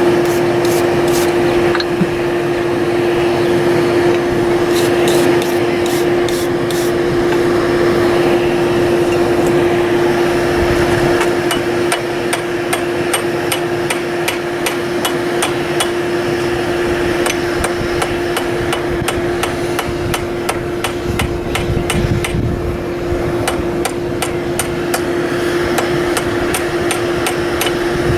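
Hammer blows on iron at the anvil, a few scattered strikes at first, then a steady run of about two to three blows a second. A constant hum runs underneath.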